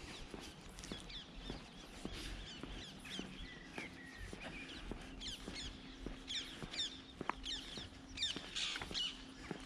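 Songbirds singing in short, repeated chirping phrases, louder in clusters about halfway through and near the end. Under them come steady walking footsteps on pavement, a bit under two a second, and a faint steady hum.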